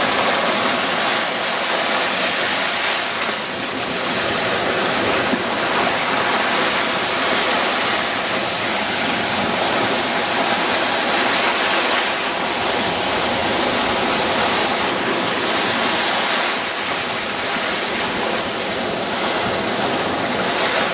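Surf breaking and washing through the shallows at the water's edge: a loud, steady rush of waves.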